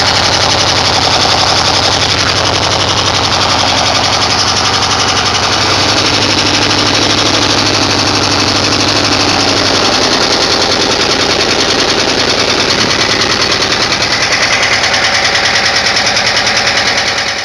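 1977 Volkswagen Westfalia's air-cooled flat-four engine idling steadily at about 1200 rpm, heard close up with a rapid, even pulsing from its exhaust.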